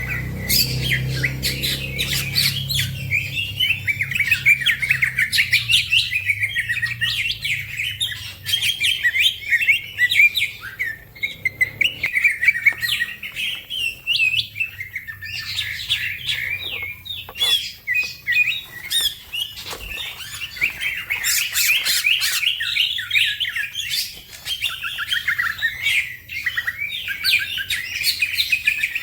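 Green leafbird (cucak ijo) singing vigorously: a fast, unbroken stream of chirps and trills, with occasional sharp high notes cutting through.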